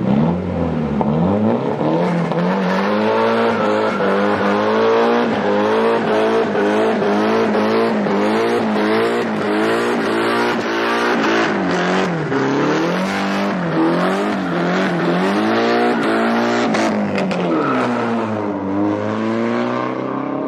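Nissan 240SX's swapped SR20DET four-cylinder, on a straight 3-inch exhaust, held at high revs during a burnout, its revs rising and dipping again and again, with tyres squealing under the spin.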